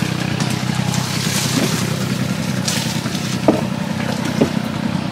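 A small engine running steadily, with two short hissing noises in the first half and two light knocks later on.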